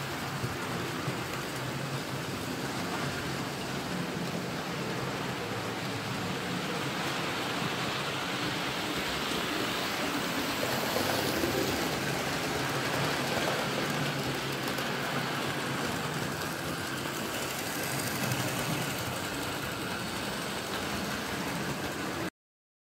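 Model trains running on the layout: a steady rumble and clatter of small wheels on the rails with electric motor hum. It swells a little midway as a train passes close, and cuts off suddenly near the end.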